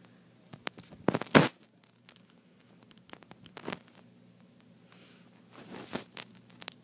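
Short scrapes and clicks of close-up handling, the loudest about a second and a half in, as debris is picked out of a phone's charging port.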